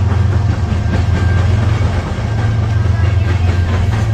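CN freight train passing a grade crossing: a steady, loud low rumble from the diesel locomotives, mixed with the noise of the wheels on the rails as the first freight cars roll by.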